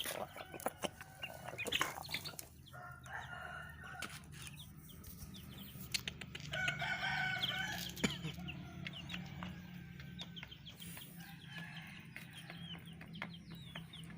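Domestic chickens clucking and calling, with a longer call of about a second and a half, a rooster crowing, around six and a half seconds in. Scattered light clicks run under the calls.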